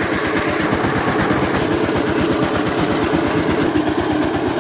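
Power tiller's single-cylinder diesel engine running steadily under way, a rapid, even chugging.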